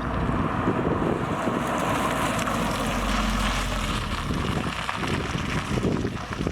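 A 2022+ Subaru WRX's turbocharged 2.4-litre flat-four running through an XForce VAREX valved cat-back exhaust, a low drone that swells about halfway through and then eases. Wind buffets the microphone throughout.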